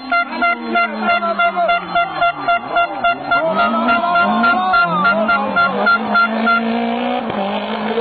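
A rally car's engine rising and falling in pitch as it brakes, changes gear and accelerates through a bend. Over it, a horn toots in quick repeated blasts, about four a second, stopping about six and a half seconds in.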